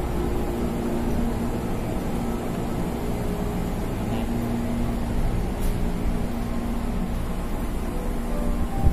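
Steady hum of a parked electric commuter train, with a faint low tone that comes and goes. There is a short thump near the end.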